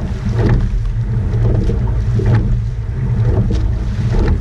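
Wind rumbling on the microphone of a camera mounted on a rowing eight. Over it the boat's rowing gear knocks briefly at each stroke, a little under two seconds apart.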